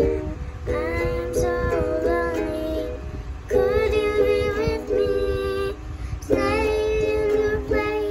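A young girl singing in three phrases with short breaks between them, while strumming chords on a ukulele.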